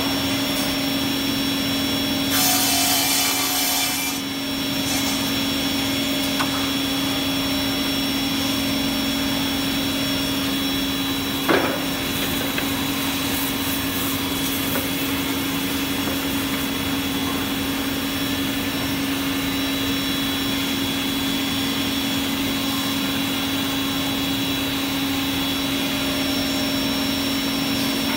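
Woodmaster WM-442R double-end cutoff saw running, its two blade motors giving a steady hum with a high whine. About two seconds in, a louder hissing burst lasts a second and a half, and a single sharp knock comes near the middle.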